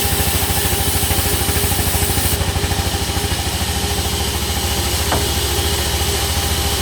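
Engine running steadily at an even idle, with a rapid, regular low pulse and a faint click about five seconds in.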